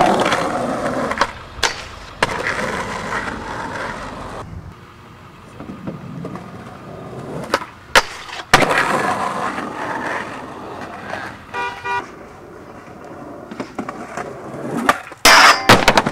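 Skateboard wheels rolling on concrete, with sharp board clacks from pops and landings and a stretch of a board grinding down a metal handrail. About three-quarters of the way through, a short horn-like tone sounds.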